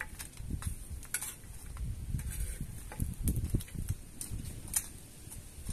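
A spoon stirring chunks of cow's foot in a clay pot, with irregular knocks and scrapes against the pot.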